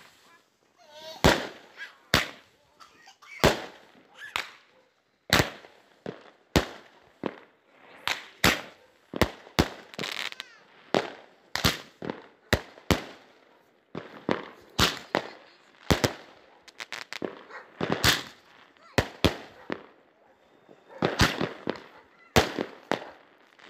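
Fireworks going off: a long, irregular string of sharp bangs and pops, roughly one or two a second, some trailing off in a short crackle or echo, with a brief lull shortly before the end.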